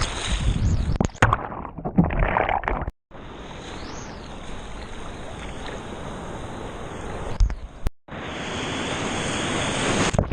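Steady rushing noise of typhoon wind and surf, with heavy rumble of wind on the microphone. The sound breaks off abruptly twice and resumes, as at cuts between clips.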